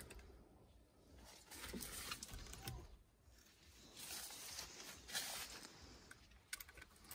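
Faint scratching and rustling of a kitten's claws gripping and clambering up a weathered wooden fence post, with scattered light clicks; it comes in two spells, about a second and a half in and again about four seconds in.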